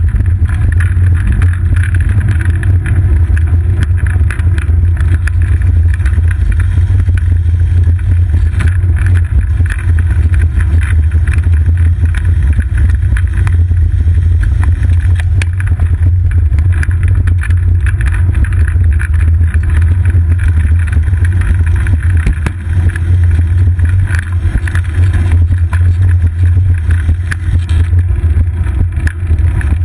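Steady low rumble of wind and riding vibration picked up by a GoPro Hero 2 on a bicycle's seat post as the bike rolls along a paved path, with a fainter hiss above it.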